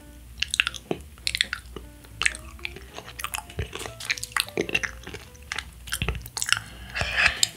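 Close-miked chewing of crispy fried chicken: a run of irregular crunchy crackles and wet mouth sounds, loudest near the end.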